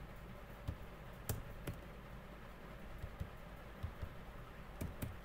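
Computer keyboard keys pressed in scattered single taps, a few sharp clicks spread irregularly over the seconds, over a faint steady low hum.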